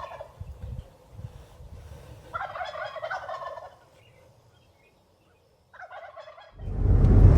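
Wild turkey gobbling three times: a gobble cut off at the start, a longer one about two and a half seconds in, and a short one about six seconds in. Near the end a loud low rumble begins and drowns everything out.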